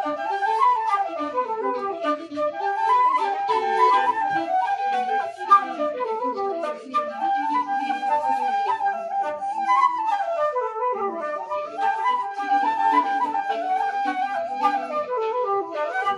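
Two Carbony carbon-fibre Irish flutes in D playing an Irish traditional tune together with a fiddle, in a continuous run of quick notes that rise and fall.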